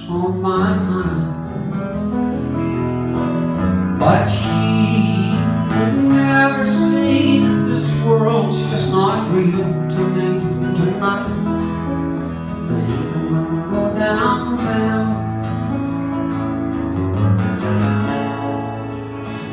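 Live band playing a country-folk song on several guitars, with acoustic guitars strumming chords.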